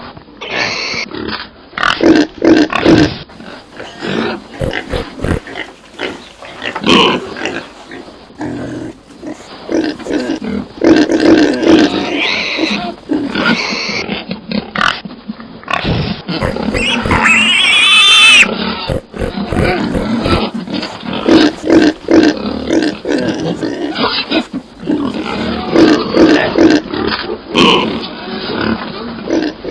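Pigs grunting over and over in short, choppy bursts. One long, high-pitched squeal rises about two-thirds of the way through.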